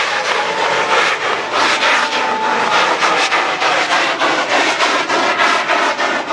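A giant firecracker going off: a dense, continuous run of rapid bangs and crackles that merges into a steady roar, with a few thin whistling tones above it.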